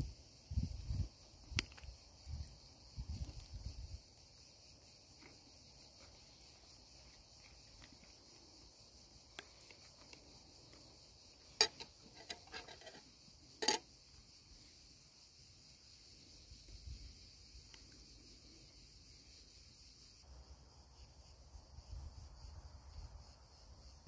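Steady chorus of crickets chirping. A few soft low knocks come in the first few seconds, and two sharp clicks about two seconds apart come midway.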